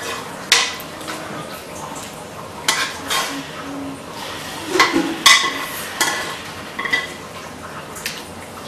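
Metal ladle scraping and clinking against a wok while soup is ladled out into a bowl: a string of irregular knocks and clinks, several with a short metallic ring.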